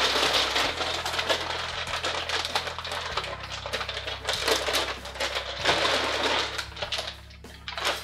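Rapid clattering and rustling of small parts being handled, lasting about seven seconds and stopping near the end, over quiet background music.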